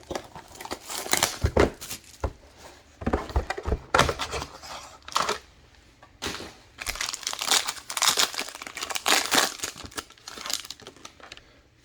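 Plastic wrap on a sealed trading-card box being torn and crumpled by hand, in irregular crinkling bursts with short pauses between.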